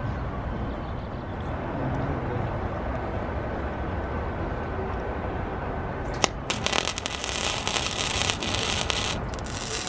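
A low, steady hum for about six seconds. Then a click and a crackling welding arc lasting about three seconds: a weld on the steel square tubing of a gate frame.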